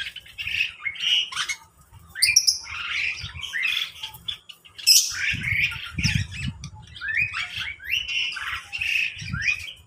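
A mixed aviary of small cage birds, lovebirds among them, calling over one another in a dense stream of short squawks and chirps, with a brief lull about two seconds in.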